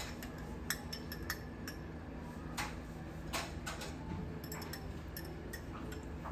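Light clinks and taps of dishes, glassware and cutlery, scattered irregularly, over a steady low room hum.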